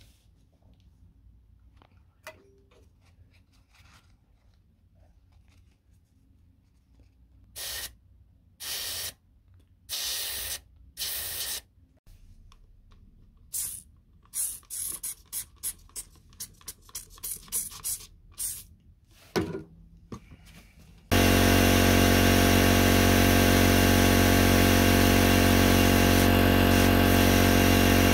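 Lawnmower compression leak test: several short blasts from a compressed-air blow gun feeding air through the spark plug hole. Then about a dozen quick squirts from a trigger spray bottle of soapy water onto the cylinder head's sealing face. The last seven seconds are a loud, steady rush with a hum as the compressed air is held on.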